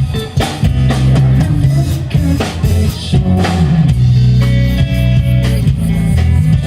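Live rock band playing an instrumental passage between sung lines: electric guitar, bass and drum kit.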